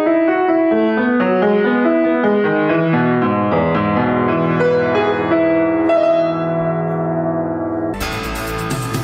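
Solo piano playing a classical piece: a running line of notes over held bass notes. About eight seconds in, the news programme's jingle cuts in abruptly.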